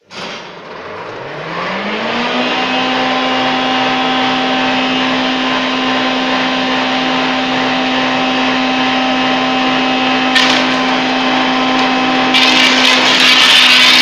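Wood chipper machine switched on from silence: its hum rises in pitch over about two seconds as it spins up to speed, then runs steadily. Near the end the noise turns louder and harsher as wood is fed to the cutter.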